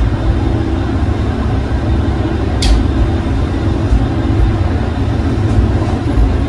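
Diesel railcar running, heard inside at the gangway between cars: a loud, steady low rumble of engine and running gear with a faint steady hum, and one sharp click about two and a half seconds in.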